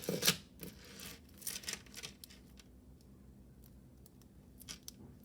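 Light crinkling and rustling with small clicks, from small jewelry pieces and their packaging being handled. It is busiest in the first couple of seconds, with a few faint ticks near the end.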